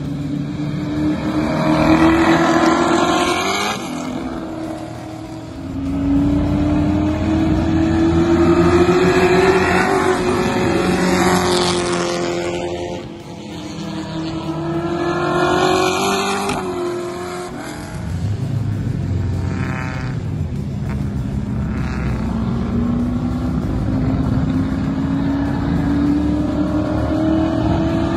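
Improved Production sedan race car engines accelerating hard past the fence one after another, each engine note climbing in pitch and dropping at gear changes. The loudest passes come about 2, 9 and 16 seconds in, with another car winding up near the end.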